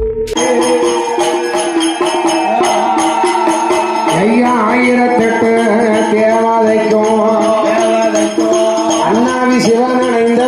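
Music with jingling bells over a sustained melody that glides up and down. It cuts in suddenly about half a second in.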